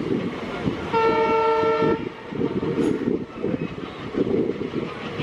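Train running noise heard from inside a coach: the steady rumble of wheels on rail. About a second in, a diesel locomotive's horn sounds one blast of about a second.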